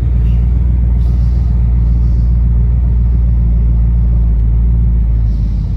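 Jeep Grand Cherokee 5.9's 360 Magnum V8 running steadily as the vehicle drives, a constant low rumble with road noise.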